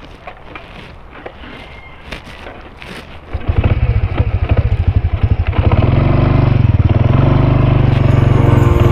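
Small motor scooter engine with some light clicks and crackles, then about three and a half seconds in the throttle opens and the engine becomes loud, its pitch rising again around six seconds in as the scooter gathers speed on a dirt track.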